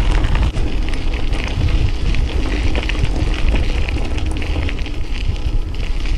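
A mountain bike being ridden: wind buffeting the action camera's microphone as a heavy low rumble, over a dense, steady crackle of the tyres rolling over loose ground.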